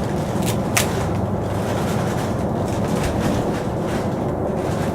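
Rubber bands being stretched and snapped onto a pumpkin, with a couple of sharp snaps about half a second and a second in, over a steady low rumble.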